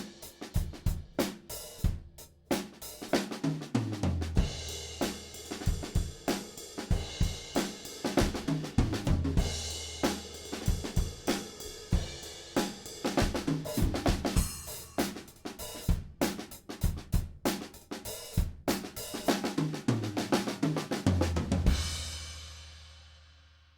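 Acoustic drum kit played in a studio recording: kick, snare, hi-hat and cymbals in a steady groove. Descending tom fills come about four seconds in and again near the end, and a final crash rings out and fades.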